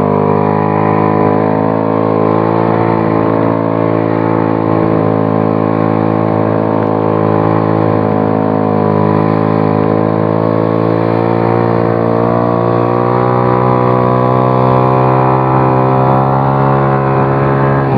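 Motor scooter engine running steadily under way, heard from the rider's seat, its pitch holding fairly even and rising a little toward the end.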